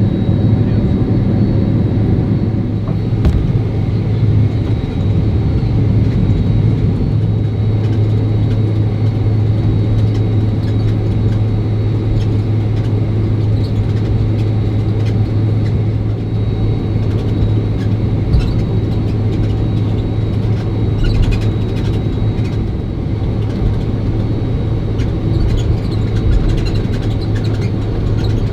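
Steady, loud cabin rumble of a Boeing 767-300 airliner: jet engine hum and airframe noise heard from inside the cabin, with a constant low drone and no rise in pitch.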